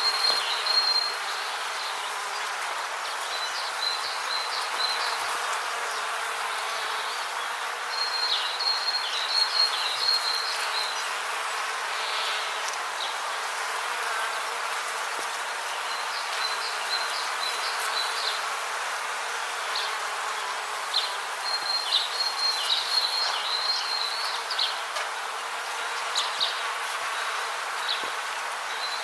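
Rainforest ambience: a steady hiss of background noise, with trains of rapid high chirps coming in bursts every few seconds.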